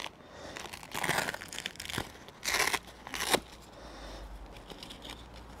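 A small paper label being handled and slid into the bag's card pocket: several short bursts of crinkling and rustling, with a sharp click about two seconds in.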